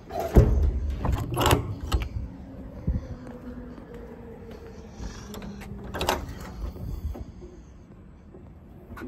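A metal compartment door on a service truck's utility body slammed shut with a loud bang, followed by a few latch clicks and knocks. A few seconds later another compartment door is unlatched and swung open with a clack.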